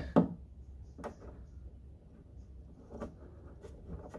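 A few scattered light clicks as a small metal retaining nut and O-ring are fitted by hand onto the fuel outlet of a plastic diesel heater tank, over a low steady background rumble.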